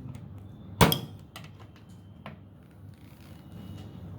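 Sharp plastic clicks from the lower front service cover of a front-load washing machine being worked open with a screwdriver or coin: one click about a second in, a few faint ticks, and another sharp click at the end.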